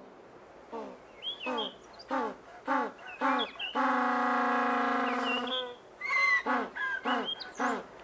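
African penguins braying: a run of short, falling, donkey-like calls about twice a second, then one long held bray lasting nearly two seconds, followed by more short calls. Faint high chirps sound now and then.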